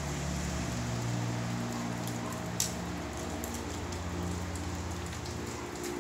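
Steady rain falling on pavement and roofs, an even hiss, over a low steady hum. One sharp tap comes about two and a half seconds in.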